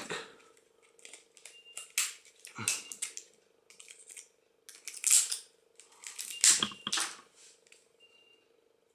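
An old Samsung mobile phone being broken apart by hand: clusters of sharp plastic cracks, snaps and clicks, the loudest about two, five and six and a half seconds in. A faint steady hum runs underneath.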